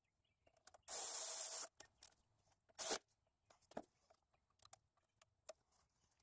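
Cordless electric ratchet running in two short bursts, a longer one about a second in and a brief one near three seconds, driving a bolt home; a few light clicks and knocks of the tool and parts being handled follow.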